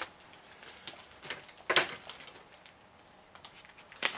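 Clear plastic wrapping around an instruction-manual pack crinkling and rustling as it is pulled open, with a few sharp crackles, the loudest a little under two seconds in and another just before the end.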